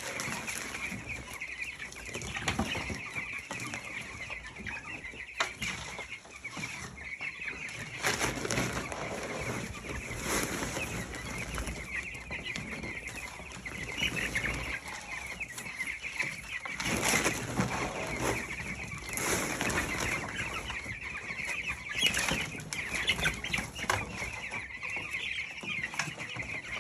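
A dense flock of 13-day-old broiler chicks peeping continuously, with several louder rustling bursts over it.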